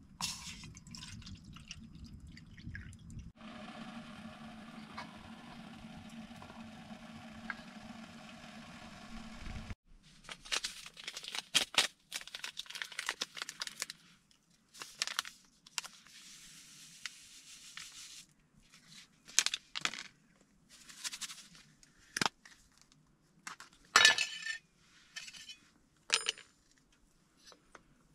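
Camp cookware being handled: short separate clinks and clatters of a pan and utensils, the loudest about 24 seconds in. These follow a steady hum that cuts off suddenly about ten seconds in.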